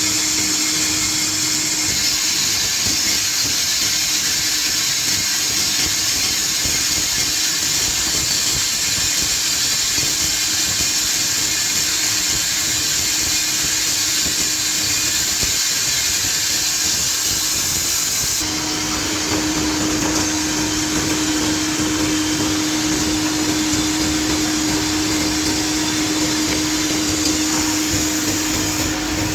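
Woodmaster WM-3A CNC woodworking milling and drilling machine running steadily, a loud hiss over a steady hum. About two-thirds of the way through, the high hiss drops back and the hum comes forward.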